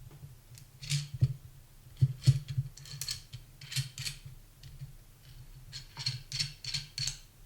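An articulating camera magic arm and its metal super clamp being handled and adjusted: a string of short clicks and scraping rattles from its joints and jaws, in clusters about a second apart.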